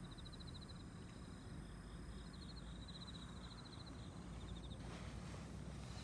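Outdoor ambience: a small animal's high, rapid trill, repeated in short runs, over a low steady rumble of wind. A hiss sets in near the end.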